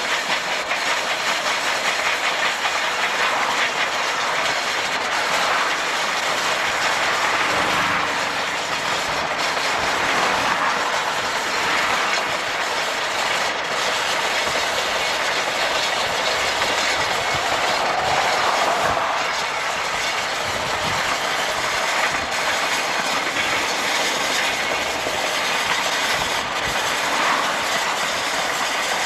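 Durango & Silverton narrow-gauge steam locomotive No. 481, a K-36 2-8-2, running at speed with its train, heard from inside a car pacing alongside: a steady rushing noise of the engine and wheels on the rails, blended with the car's own road noise.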